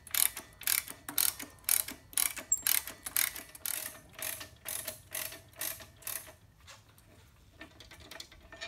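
Ratcheting 7/8-inch wrench clicking in short bursts, about two strokes a second, as the bolt at the front of a Ford Model A torque tube is backed out freely. The strokes grow faint about six seconds in.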